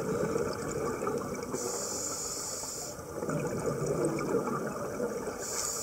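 Scuba breathing heard underwater: the bubbling rush of a diver's exhaled bubbles, twice, alternating with a thinner high hiss.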